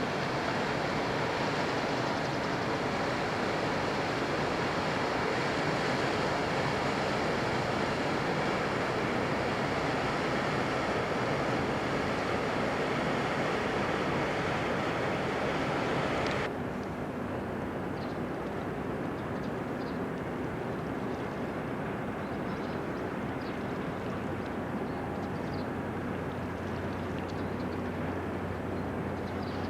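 Steady outdoor harbourside noise of wind and water. About halfway through it changes abruptly to a quieter, duller rumble with a steady low hum underneath.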